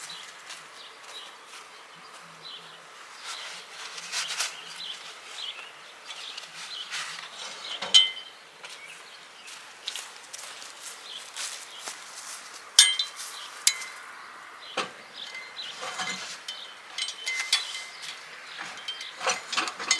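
Metal kayak rack being handled and fitted into its mount: scattered clinks and knocks, with two sharper ringing metal clanks about eight and thirteen seconds in.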